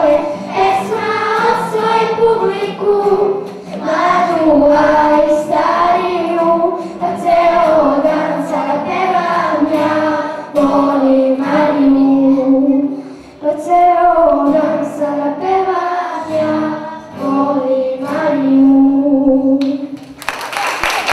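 Children's choir singing with a boy soloist on a microphone, accompanied by nylon-string acoustic guitars. About twenty seconds in the song ends and applause breaks out.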